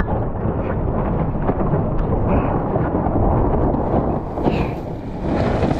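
Steady wind buffeting on the onboard microphone, a heavy low rumble, with water rushing along the hull of a Formula 18 catamaran sailing at speed.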